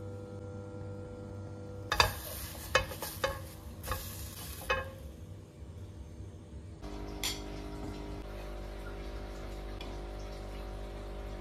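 Spatula scraping and knocking against a nonstick frying pan as food fries, with several sharp clicks over a few seconds while it is lifted out onto a plate. After that, a steady low hum.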